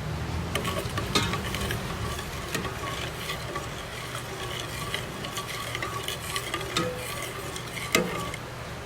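A utensil stirring a simmering soy sauce, sugar and chicken-broth sauce in a pot, with repeated light clicks and scrapes against the pot over a steady bubbling hiss. A sharper knock comes near the end, and then the stirring stops.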